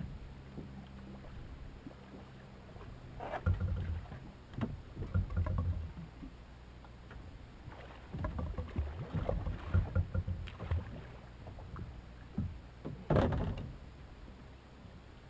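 Irregular knocks and thumps on a small boat's hull, with splashing, as a hooked leerfish is gaffed at the surface and hauled aboard; the loudest knock comes near the end, as the fish comes into the boat.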